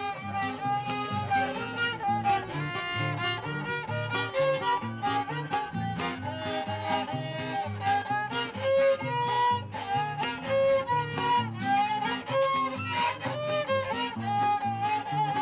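Violin playing a folk melody in held notes over a strummed guitar accompaniment with a steady beat.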